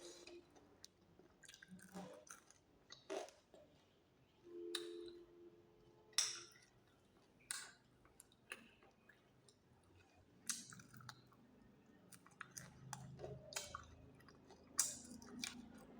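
A person chewing spicy roast chicken close to the microphone: faint, irregular wet clicks and smacks of mouth and teeth.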